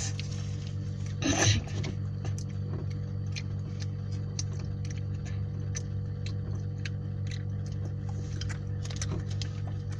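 A person chewing and smacking food close to the microphone: many small wet clicks, with a louder burst of noise about a second and a half in, over a steady low hum.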